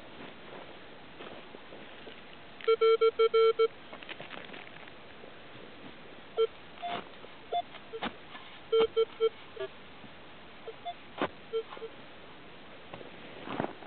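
Minelab X-Terra 705 metal detector giving short electronic target beeps as its coil is swept over a target in the grass. A quick run of about six low beeps comes about three seconds in, then scattered single and paired beeps, a few at a higher pitch, with some faint clicks.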